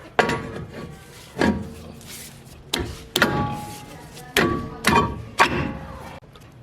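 Rear brake drum of a Toyota Hilux being knocked onto the hub over the new brake shoes: about seven sharp metal knocks, each leaving a short ringing tone.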